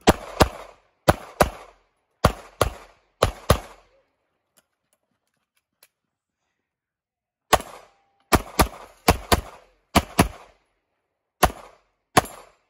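Handgun fired in quick pairs: about eight shots in the first four seconds, a pause of about three and a half seconds, then about ten more shots in pairs and singles.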